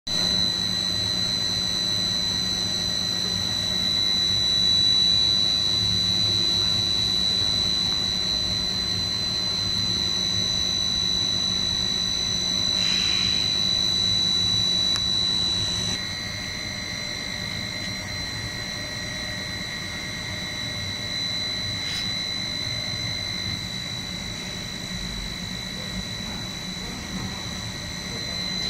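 Snack-pellet extruder line running: electric drive motors give a steady high-pitched whine over a low hum. About halfway through, it drops a little in level and a lower whine joins.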